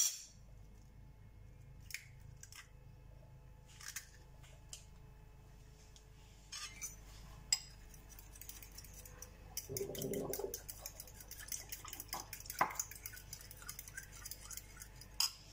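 A metal fork beating an egg into milk in a small ceramic bowl. A few single clicks come first, then from about halfway a rapid, steady clinking of the fork against the bowl.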